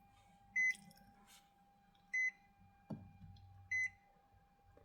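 A car's electronic warning chime beeping three times, about one and a half seconds apart, each beep short and high-pitched. A faint steady tone runs underneath, and there is a single click about three seconds in.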